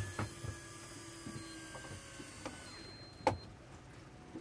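Faint whine of a small electric motor, its pitch sliding slightly down before it stops a little before three seconds in. Scattered light clicks and knocks, with one sharper knock about three seconds in.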